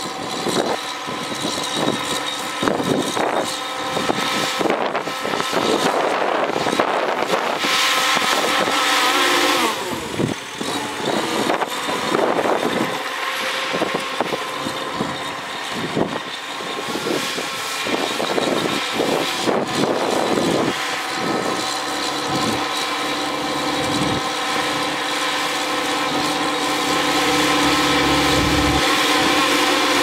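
Shantui crawler bulldozer's diesel engine running steadily under load as it pushes a blade-full of dirt and rocks, with repeated clanks and knocks throughout and a brief rush of hiss about eight seconds in.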